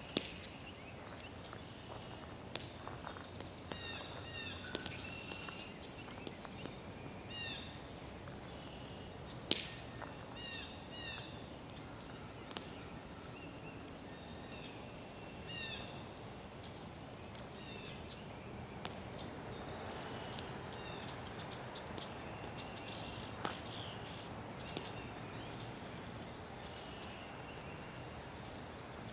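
Birds chirping and singing in short repeated phrases over a steady outdoor background. A wood campfire gives scattered sharp pops, the loudest about nine and a half seconds in.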